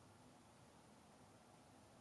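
Near silence: faint steady room tone and hiss.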